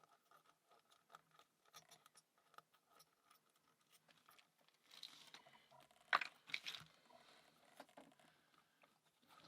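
Faint metallic clicks and scrapes of a lock pick and tension tool working the pins of a wet, rusty Standers 54 mm padlock, with a louder cluster of clicks and scrapes about five to seven seconds in.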